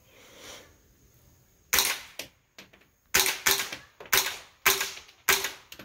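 Six suppressed shots from a Smith & Wesson M&P15-22 semi-automatic .22 LR rifle firing subsonic ammunition through an AAC Prodigy suppressor. One shot comes about a second and a half in, then five more follow in quick succession. Each is a short, sharp report that dies away fast, with no supersonic crack because the rounds are subsonic.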